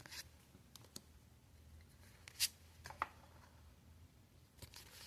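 Pokémon trading cards being handled and sorted: quiet rustling with a few light taps, and two sharper clicks about two and a half and three seconds in.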